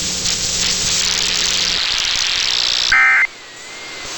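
AM radio static hiss, then about three seconds in a short, loud burst of EAS digital data tones: the SAME end-of-message signal that closes the alert test.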